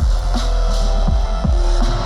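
Loud bass music over a festival sound system: heavy sustained sub-bass and a kick drum about twice a second, with held synth tones above.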